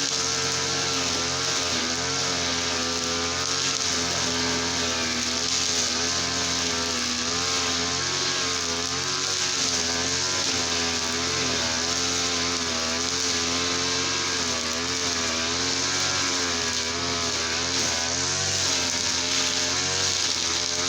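Small two-stroke engine of a TL33 brush cutter running steadily at high speed, its pitch wavering slightly up and down.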